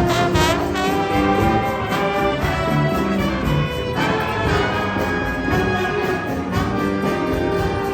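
Junior-high saxophone ensemble of alto, two tenors and baritone playing a jazz piece with bass guitar and piano, several horn lines moving together over the bass.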